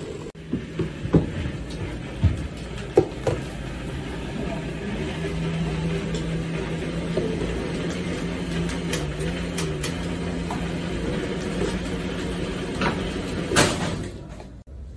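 Countertop blender motor running steadily while a thick nut-and-banana shake is stirred in its jug with a long spoon, with a few sharp knocks of the spoon in the first three seconds and a brief louder noise near the end.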